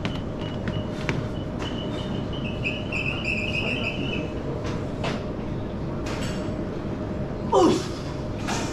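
Steady background rush in a gym, with light clinks of barbell plates as a loaded bar is squatted. About seven and a half seconds in comes a short, loud vocal sound falling in pitch, the lifter's grunt.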